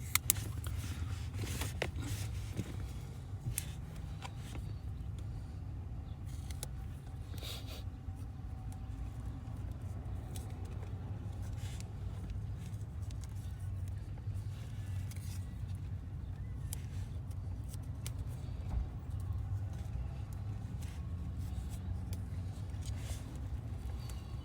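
Small clicks and scrapes of hands working on wiring and tape, over a steady low rumble.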